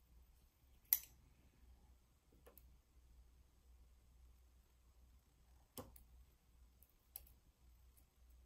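Four short, sharp clicks of steel surgical instruments (a needle holder and tissue forceps) handled over a suture practice pad, the first, about a second in, the loudest.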